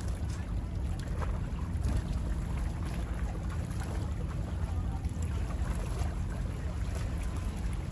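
Small bay waves lapping and splashing close by, over a steady low rumble.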